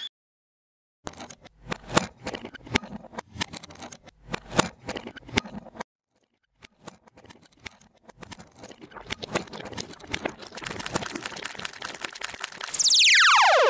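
Electronic soundtrack: after a moment of silence, a run of irregular sharp clicks and knocks with a short pause, thickening into dense crackling, then a loud synthesizer sweep falling in pitch near the end.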